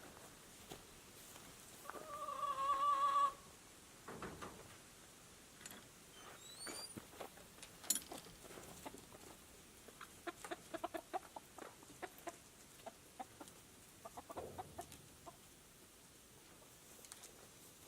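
Chickens clucking in short bursts, with one loud drawn-out call about two seconds in. A few higher bird chirps come through around the middle.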